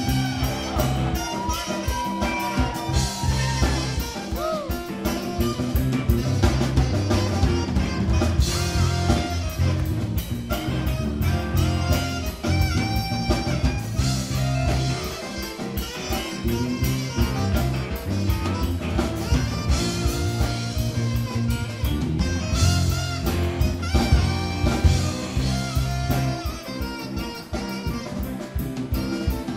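Live rock-and-roll band playing: saxophone over electric guitars and a drum kit.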